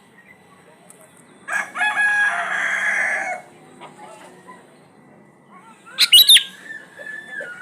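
Sooty-headed bulbul calls: a loud, harsh call of about two seconds early on, then a quick burst of sharp sweeping notes and a few short whistled notes near the end.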